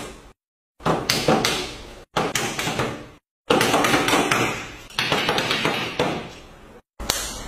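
A series of sharp knocks, about six, each starting suddenly and trailing off over up to a second and a half, with short silent gaps between some of them.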